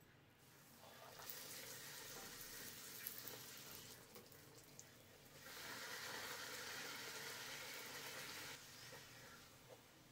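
Hot oil sizzling as a puri deep-fries in a kadai, coming up about a second in, easing briefly around four to five seconds, then louder again from about five and a half seconds until it drops off near the end.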